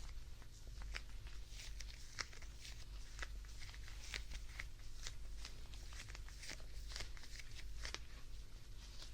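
Close-miked ASMR handling of a plush teddy bear: soft scratching and rustling of the fabric with frequent small crackly ticks.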